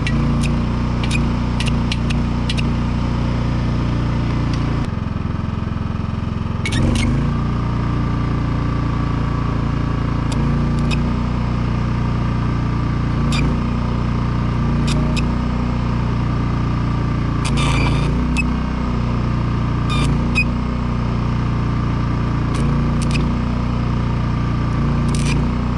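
Denyo engine-driven welder running steadily. Sharp irregular clicks and ticks come from the stick-welding rod being tapped and scratched against the steel tube to strike an arc. The engine's low note dips for a couple of seconds about five seconds in, then returns.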